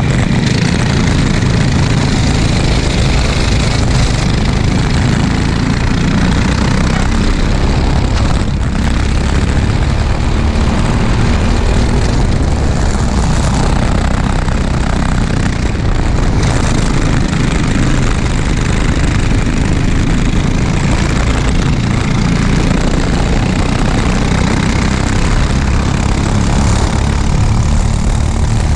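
Racing kart engine running hard under race load, recorded onboard, with strong wind rush on the microphone and the engines of the surrounding karts in the pack.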